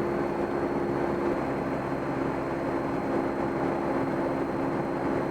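Steady drone of a Cessna 172M's four-cylinder Lycoming engine and propeller in cruise, heard inside the cabin, with a few steady tones in it.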